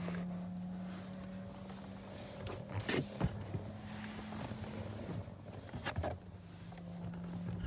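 Steady low hum inside a BMW's cabin, broken by a few sharp knocks and clunks: a pair about three seconds in and another about six seconds in.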